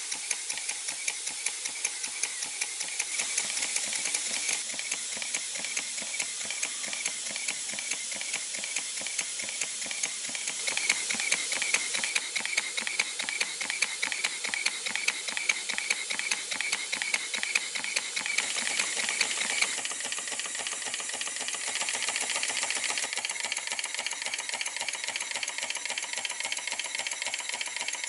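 Small model stationary steam engine running fast: a rapid, even stream of exhaust beats over a steady hiss. It grows louder about eleven seconds in and eases again around twenty seconds.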